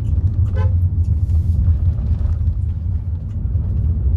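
Hyundai Creta driving on a forest ghat road: a loud, steady low rumble of engine and road noise.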